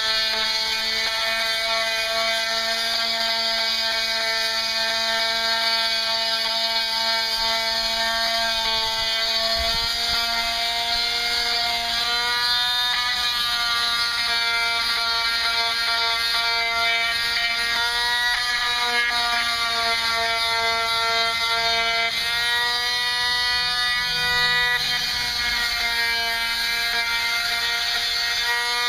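Electric sanding tool running on teak wood with a steady high buzz, its pitch dipping briefly a few times.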